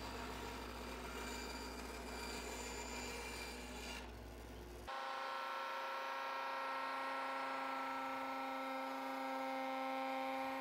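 A bandsaw running and cutting a hardwood board, a steady low hum under a rough cutting hiss, which stops a little after four seconds in. About a second later a Porter-Cable plunge router starts with a steady high whine of several even tones as it trims the board's curved end against a plywood template.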